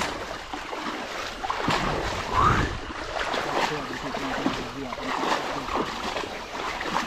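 Running water of a shallow stream, an irregular rushing noise with scattered short splashy sounds, and faint voices in the background.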